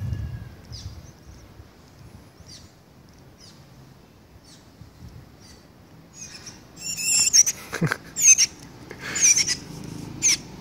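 Bird calls: faint, spaced chirps at first, then from about six seconds in a run of loud, warbling, pitch-gliding calls close by from a shiny cowbird.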